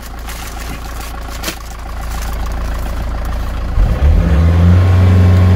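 Peugeot Partner van engine idling, then revved up about four seconds in and held there, noticeably louder. The engine is in limp mode, with reduced power and its revs limited.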